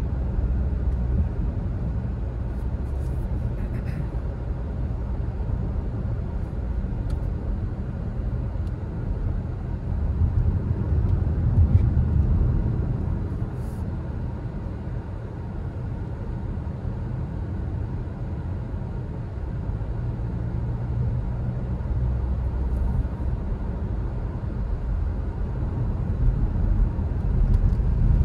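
Skoda Kodiaq SUV driving at speed, heard from inside the cabin: a steady low rumble of road and engine noise that swells twice, midway through and again near the end.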